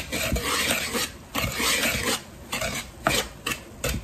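Wire whisk stirring dry flour mixture in a plastic mixing bowl: a scratchy, rustling swish in uneven strokes, with a couple of light clicks near the end.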